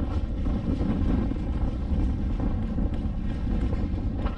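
Wind buffeting a body-worn camera's microphone, a steady low rumble, with faint irregular crunches of footsteps on a gravel dirt track.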